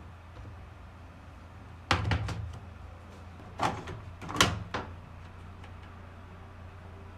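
A few sharp knocks and clicks in three quick clusters, about two, three and a half, and four and a half seconds in, over a steady low hum.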